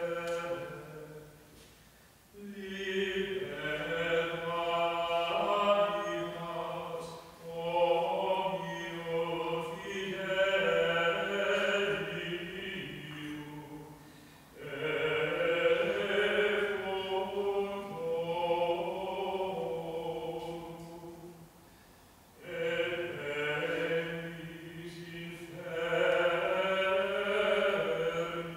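Slow liturgical chant, sung in long held phrases of several seconds with short breaks between them.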